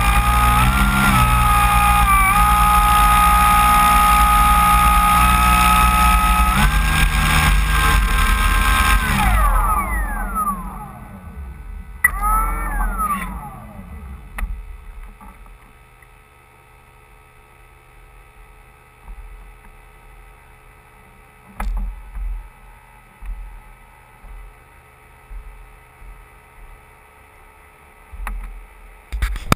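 RC float plane's electric motor and propeller running at taxi speed with a steady whine that steps in pitch, then throttled back about nine seconds in, the whine sliding down as the propeller spins down. There is a short blip of throttle around twelve seconds, then the motor falls silent, leaving a faint low hum and scattered soft thumps.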